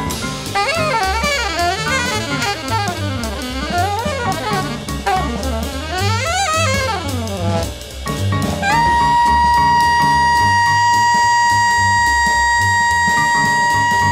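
Jazz alto saxophone playing fast bebop runs that sweep up and down over a rhythm section with drums and bass, then, about nine seconds in, landing on one long held high note that it sustains to the end.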